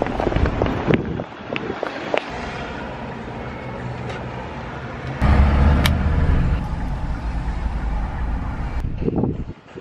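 Inside a moving taxi's cabin: a low, steady rumble of engine and road noise that comes in suddenly about five seconds in. Before that there is lighter street noise with scattered clicks.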